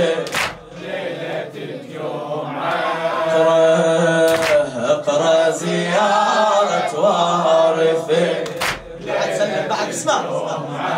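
Male voices chanting a slow Husseini latmiyya melody without instruments, a sharp thump about every four seconds.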